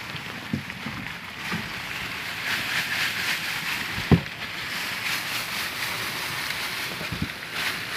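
Dry rustling and scrabbling of a dense mass of farmed crickets on cardboard egg trays, with a few light knocks and one sharper knock about four seconds in.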